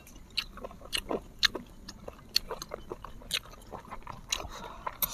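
Close-miked eating of instant noodles: chewing and slurping with irregular wet mouth clicks and smacks, several a second.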